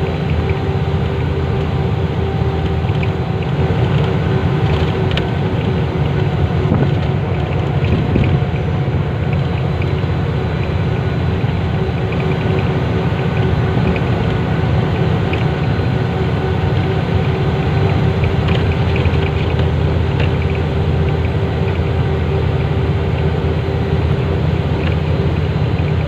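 An engine running steadily: a constant low rumble with a faint, unchanging hum over it.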